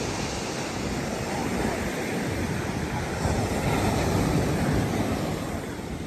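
Pacific Ocean surf breaking and washing up a sand beach as a steady rushing hiss, growing a little louder around the middle as a wave comes in. Wind buffets the microphone.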